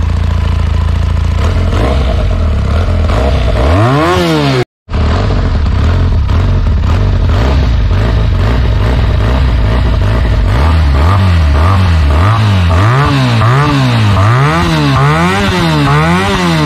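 Benelli TNT 300's liquid-cooled parallel-twin engine idling on the stand, revved once about four seconds in, then, after a brief dropout, idling again before a run of quick throttle blips, about six rising and falling revs in a row, near the end.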